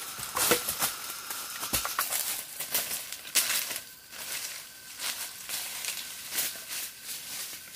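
Irregular rustling and crackling of dry leaves and brush being handled or trodden, a quick run of short crunches.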